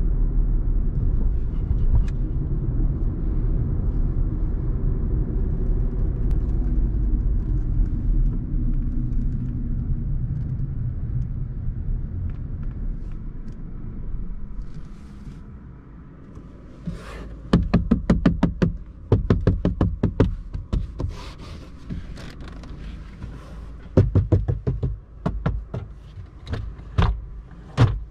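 Inside the cabin of a 2019 Volkswagen Polo, the steady engine and road rumble of its 1.0-litre three-cylinder petrol engine while driving, fading away as the car slows. A few seconds later come several quick runs of knocks on the interior trim panels, rapped to check their build quality.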